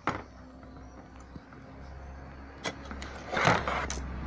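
Handling noise as parts are moved about: a few light clicks and a short rustle about three seconds in, over a steady low hum.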